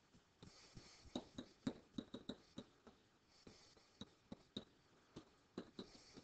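Faint, irregular taps and soft scratching of a stylus on a tablet's writing surface as words are written by hand.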